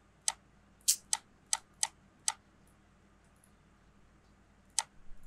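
Computer mouse button clicks: a quick run of about six sharp clicks in the first couple of seconds, a pause, then two more clicks near the end.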